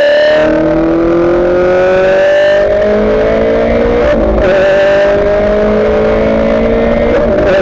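Ferrari F430 GT race car's V8 engine heard from inside the cockpit, pulling hard with its note rising as the car accelerates, a quick upshift about four seconds in, then the pitch climbing again through the next gear.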